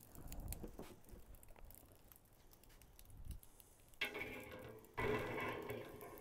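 Faint clatter of hickory wood chunks dropped onto charcoal. About four seconds in and again a second later, the steel cooking grate of a Pit Barrel Cooker clanks as it is set into the barrel, each clank ringing on with a metallic tone.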